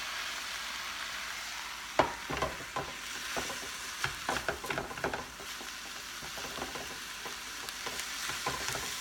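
Ground beef sizzling as it browns in a frying pan over medium heat. About two seconds in a sharp knock starts a run of scrapes and knocks of a utensil against the pan as the meat is stirred, with a few more near the end.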